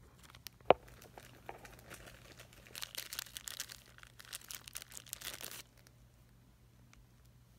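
Thin clear plastic bag crinkling as it is handled and crumpled, for about three seconds in the middle, stopping abruptly. A single sharp click comes about a second in.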